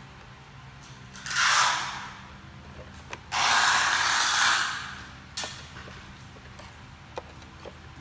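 Hands and a tool working on a projector's casing: two rasping scraping noises, one about a second long and one nearly two, then a few small sharp clicks, over a faint steady low hum.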